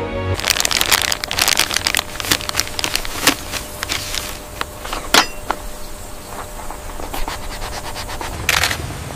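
Plastic medical supplies and packaging handled on a table: irregular crackling and clicking, thick for the first four seconds or so, then sparser, with another short cluster near the end.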